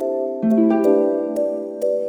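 Soft instrumental background music, slow sustained keyboard or piano-like notes changing every half second or so.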